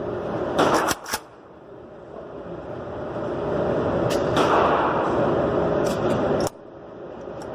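A few sharp rifle shots at an outdoor range, two close together about a second in and another around four seconds in, over a steady rushing background noise that cuts off suddenly near the end.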